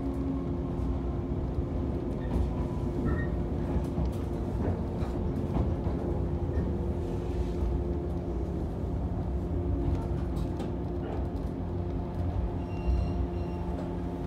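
Shinano Railway electric train heard from inside the carriage as it pulls into a station: a steady rumble of wheels and running gear with a low motor hum and scattered clicks from the rails.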